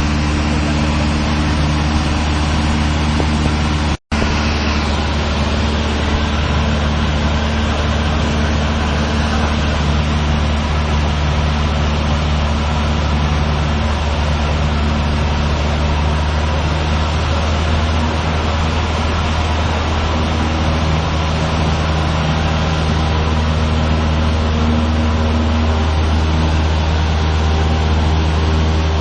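Cessna 152's four-cylinder Lycoming engine and propeller droning steadily, heard inside the cockpit in flight. The sound cuts out for an instant about four seconds in.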